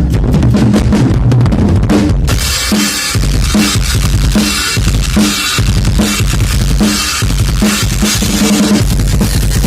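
Drum kit played loud: kick and snare hits, with cymbals washing in from about two seconds in.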